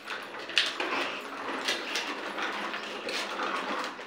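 Hard plastic wheels of a child's ride-on toy motorcycle rolling and grinding over a rough concrete floor, with a few sharper scuffs.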